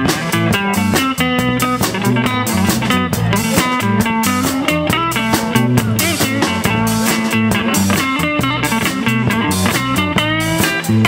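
Instrumental blues-rock music with no singing: a guitar plays over a bass line and a drum kit keeping a steady beat, and the guitar bends notes upward near the end.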